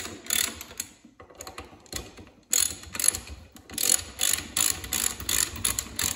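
Socket ratchet clicking in quick runs as it is swung back and forth, tightening the bolts that hold the ring gear to a snowmobile drive clutch. There is a short lull after the first second.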